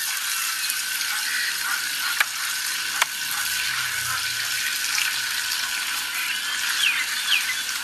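Food frying in a pan, a steady sizzle with a few sharp pops.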